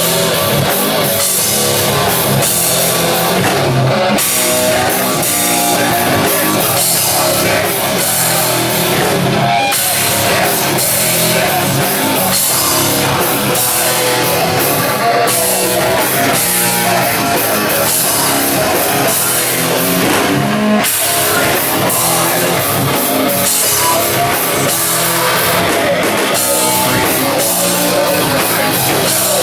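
Live heavy rock band playing: distorted electric guitars over bass and a full drum kit, loud and steady.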